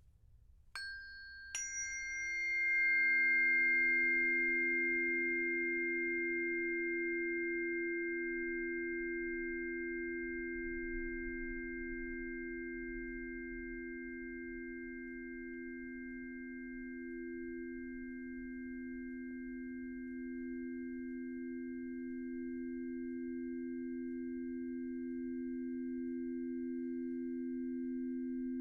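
Singing bowls struck twice in quick succession about a second in, then a long sustained ringing tone that swells, slowly eases and keeps sounding, with a slight waver between two close low pitches.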